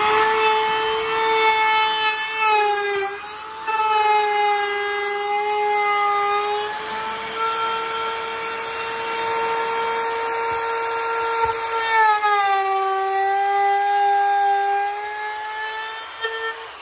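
Electric plunge router running with a high steady whine as its bit trims the edge of pallet-wood boards. Its pitch sags briefly about three seconds in and again from about twelve to fifteen seconds in as the bit takes more wood, and it starts to wind down at the very end.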